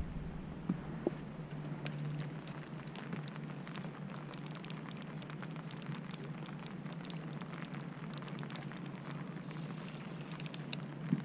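Light rain pattering: many small, irregular drop ticks over a steady low hum.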